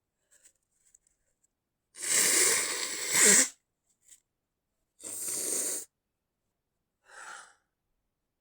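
A person's stifled sneezing: a loud burst about a second and a half long that peaks sharply near its end, a shorter second burst about two seconds later, and a weaker short one near the end. A few faint ticks come before them.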